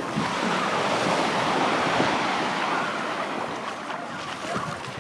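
Surf washing onto a sandy beach: a steady wash of breaking waves.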